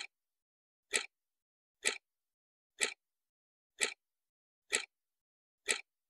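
A ticking sound effect: seven sharp, identical ticks evenly spaced just under a second apart, with dead silence between them.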